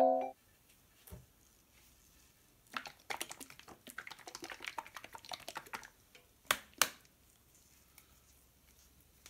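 Gloved hands handling a plastic squeeze bottle of pancake batter, shaking it: a quick run of rattly taps and rustles for about three seconds, then two sharp clicks.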